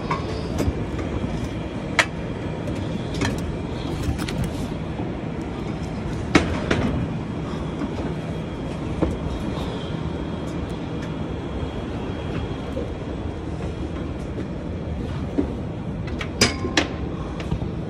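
Metal scaffolding being climbed: scattered sharp metallic knocks and clanks over a steady low rumble.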